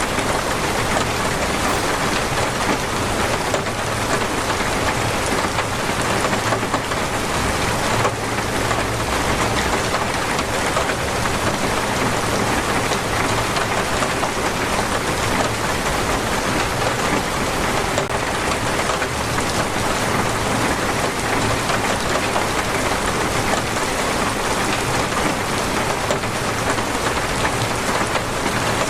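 Torrential rain pouring down, a dense, steady hiss with no let-up.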